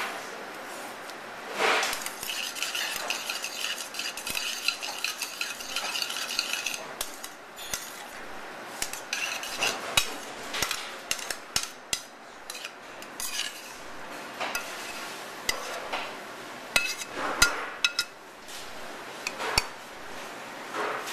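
A metal utensil clinking and scraping against a stainless steel skillet as pasta is tossed and stirred in it, with many sharp clicks and knocks and a high ringing for a few seconds near the start.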